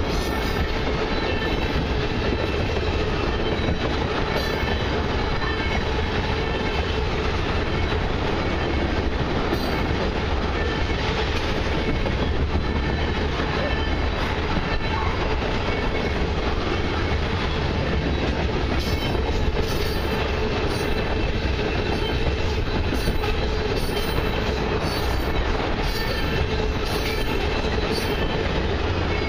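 Loaded crude-oil tank cars of a freight train rolling steadily past on their steel wheels and rails, with a continuous rumble and clatter.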